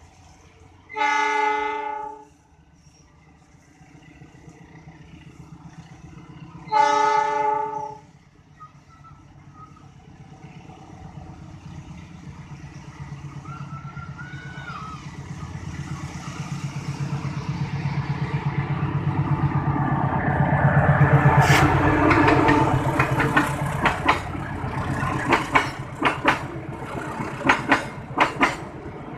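Departing passenger train: the diesel locomotive sounds two horn blasts of about a second each, some five seconds apart. Its engine then grows steadily louder as it draws near and passes, and from about twenty seconds in the wheels of the stainless-steel coaches click rhythmically over the rail joints.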